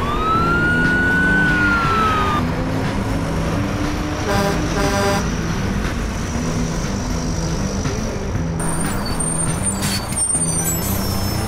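A single siren wail rises sharply, holds and sinks slightly before cutting off about two seconds in, over background music with stepped low notes. A brief buzzy tone sounds about four and a half seconds in.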